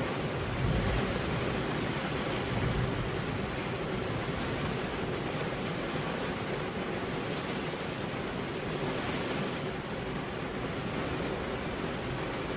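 Heavy rain falling steadily on a road, an even rushing hiss, with a couple of low swells in the first few seconds.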